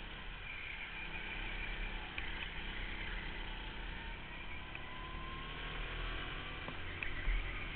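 Go-kart engine running under way, heard from on board the kart, with a faint rising pitch near the middle. A low thump near the end.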